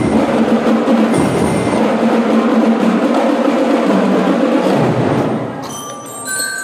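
School drum and lyre corps playing: snare and bass drums beating under metallic bell-lyre notes. Near the end the drumming drops away, leaving a few ringing bell notes.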